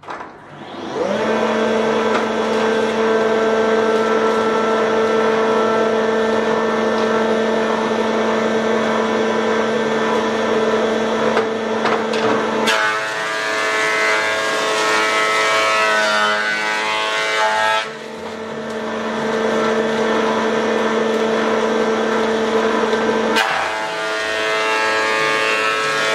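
Lumberjack PT305 benchtop planer/thicknesser motor starting up and running, with a steady whine. The sound turns busier and rougher about halfway in and again near the end as boards pass through the cutter block. The feed rollers now pull the timber through after a new drive belt and cleaning of the rollers and table.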